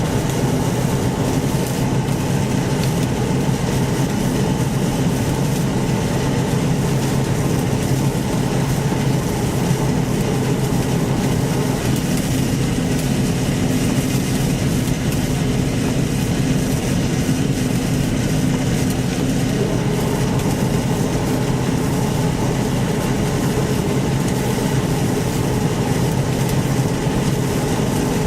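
John Deere 1075 combine harvester running steadily while combining barley: a continuous, even engine and machinery noise with no change in pace.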